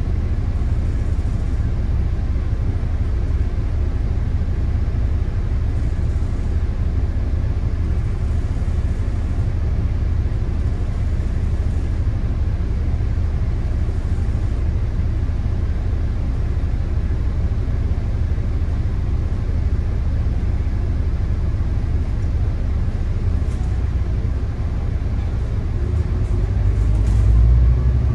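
Volvo B9TL double-decker bus's 9-litre diesel engine idling with a steady low rumble, heard from inside the bus while it stands in traffic. Near the end the engine note rises and grows louder as the bus pulls away.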